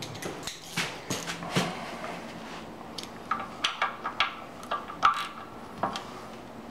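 Ratchet wrench and thin-wall socket clinking as they are handled and fitted onto the clutch's jam nut. A series of short, irregular metal clicks and clinks, several with a brief ring.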